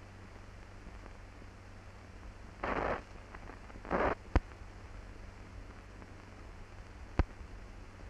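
Surface noise of an old film soundtrack: steady hiss over a low hum, with two short rushes of noise about three and four seconds in and two sharp pops, the loudest sounds, shortly after four seconds and near the end.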